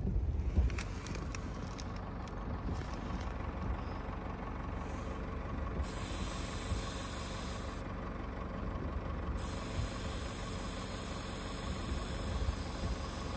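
Continuous hiss of air being let out of a tyre to lower its pressure for grip on snow, over the steady low rumble of an idling vehicle engine.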